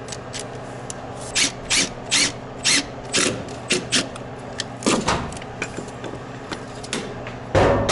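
Short scraping clicks, two or three a second and unevenly spaced, from working at a hole-saw plug of wood and foam stuck in a freshly cut hole; the plug has not yet come loose. A steady low hum runs underneath.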